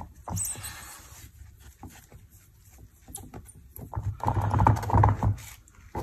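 Cloth wiping and rubbing over the resin surface of a wooden embroidery hoop, with scattered light knocks from handling. The rubbing and handling grow louder between about four and five and a half seconds in.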